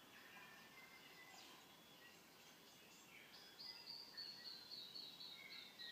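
Faint forest birdsong: scattered short high chirps, then from a little past halfway a long high whistle that falls slowly in pitch.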